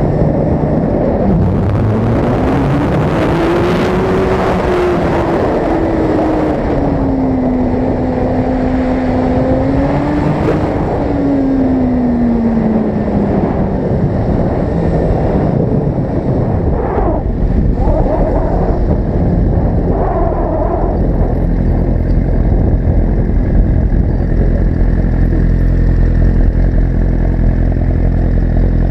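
Motorcycle engine rising and falling in pitch with the throttle while riding, over wind rushing across the microphone. A little past halfway the bike has stopped and the engine settles into a steady idle.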